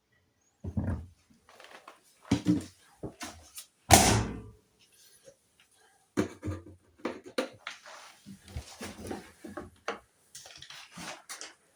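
Hoover washing machine early in its Mixed 30 cycle, the drum turning the load: a run of irregular thuds and clatter, the loudest about four seconds in.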